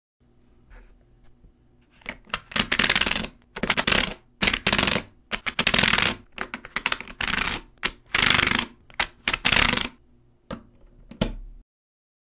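Small magnetic balls clicking and clattering against one another in a quick series of short rattling bursts, with two sharp single clicks near the end.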